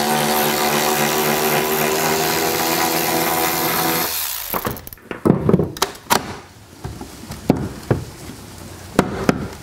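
Small cordless electric ratchet running steadily for about four seconds as it spins out a bolt holding a truck-bed tie-down, then stopping suddenly. A few light clicks and knocks follow.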